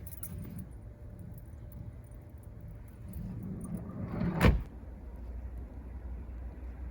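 A camper van's sliding door rolling along its track and slamming shut once, about four and a half seconds in, after a few light jingling clicks near the start.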